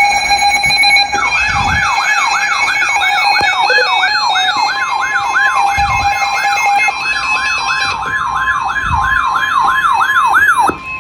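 Emergency alert tones from several receivers sounding at once. A steady attention tone runs throughout. About a second in, a rapid rising-and-falling siren-like warble joins it, repeating nearly three times a second, and it stops just before the end. About halfway through, another steady single tone comes in and outlasts the warble.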